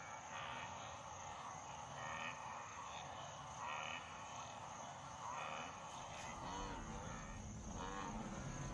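A migrating wildebeest herd calling with short nasal grunts and lowing over a steady chirring of insects. The pitched calls come thicker toward the end.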